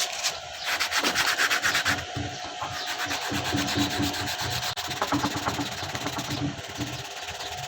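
Quick, repeated hand rubbing or sanding strokes, densest and loudest in the first two seconds, then softer and more irregular. A faint steady tone runs underneath.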